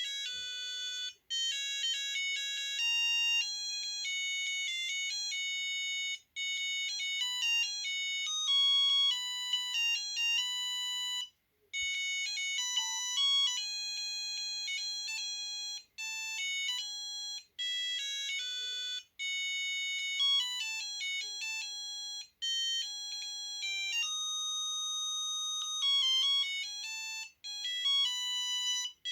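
Samsung SGH-A300 mobile phone ringtones playing one after another: short electronic melodies of quick beeping notes. Each tune breaks off in a brief silence every few seconds before the next one starts.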